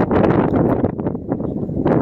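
Strong wind buffeting the microphone in gusts, a loud low rumble that eases briefly in the middle and picks up again near the end.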